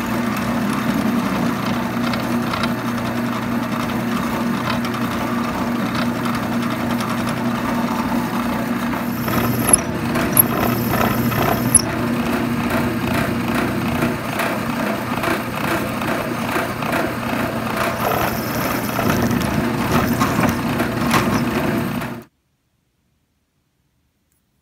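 Drill press running as a twist bit drills out the base of a brass 30-06 rifle casing held in a vise: a steady motor hum with a few sharp clicks and brief high-pitched sounds from the bit in the brass, about ten and eighteen seconds in. It cuts off abruptly near the end.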